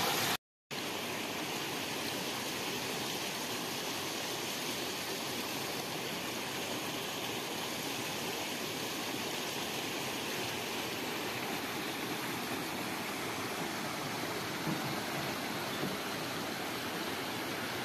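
Mountain stream flowing and splashing over rocks and a small waterfall, a steady, even hiss of running water. The sound drops out for a moment about half a second in.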